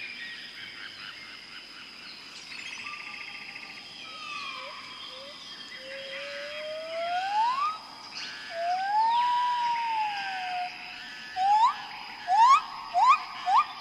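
Tropical forest ambience: a steady high insect drone under a mix of bird calls and chirps. A loud clear whistle glides slowly upward halfway through, then an arching whistle follows, and near the end come four short upswept whistles in quick succession.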